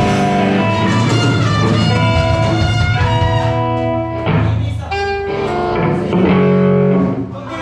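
Live ska band playing loudly: held, melodic instrument notes over bass guitar and drums, with the loudness dipping briefly near the end.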